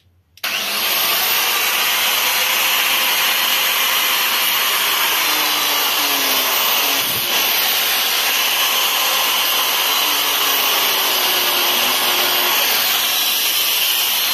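Electric angle grinder switching on about half a second in and running steadily at full speed, its disc grinding against a metal wristwatch.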